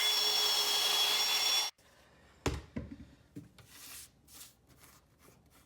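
Power drill running steadily with a constant whine as it bores into a very hard Brazilian cherry hardwood floor, then cutting off suddenly after about two seconds. A few light knocks follow.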